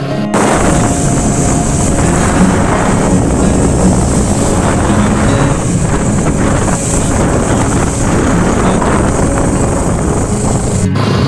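Wind rushing over the microphone of a moving motorcycle on a rain-soaked road, a loud steady roar with road noise under it. It cuts in just after the start and cuts off abruptly just before the end.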